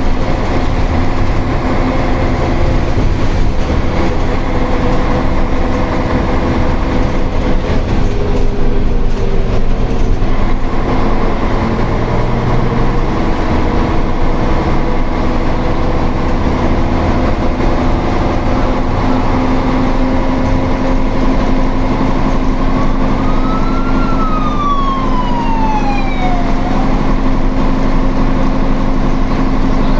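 Diesel engine of a Karosa ŠM 11 city bus running as the bus drives, heard from inside the cabin. Late on, an ambulance siren sweeps up once and back down over about four seconds.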